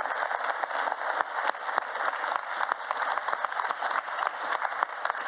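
Audience applauding: many hands clapping at once, dense and steady.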